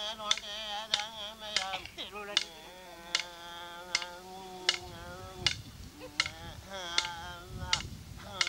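A Tiwi Kulama ceremony song: one voice singing long, wavering notes, with sharp struck beats keeping time about once every three-quarters of a second. Wind rumbles on the microphone in the second half.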